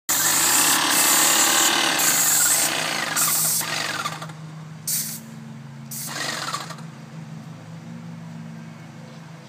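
Paint spray gun hissing as it sprays: one long spray over the first four seconds, then two short bursts about five and six seconds in. A steady low hum runs underneath.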